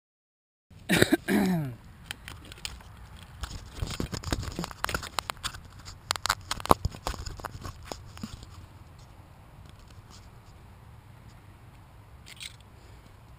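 Handling noise on the tricopter's onboard camera as it is picked up from the grass and held: sharp knocks and a short falling tone near the start, then a run of clicks, knocks and scraping that thins to faint rustling after about eight seconds. The motors are not running.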